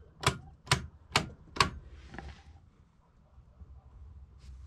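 Circuit breaker toggles in an RV power distribution panel snapping as they are flipped, about five sharp clicks roughly half a second apart, followed by a brief soft rustle.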